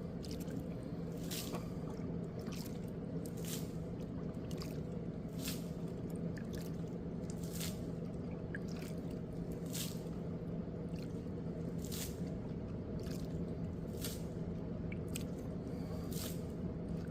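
Water dripping irregularly, one or two drops a second, over a steady low rushing noise.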